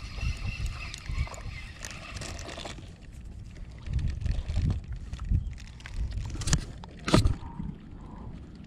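Wind buffeting the microphone in uneven low gusts, with handling noise and two sharp clicks near the end while a small needlefish is unhooked and tossed back.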